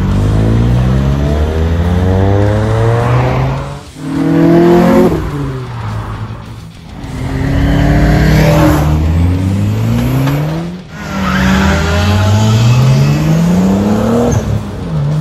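Modified performance cars, including Ford Escort RS Cosworths, accelerating hard away one after another. Each engine revs up in a rising sweep, with short dips between the pulls.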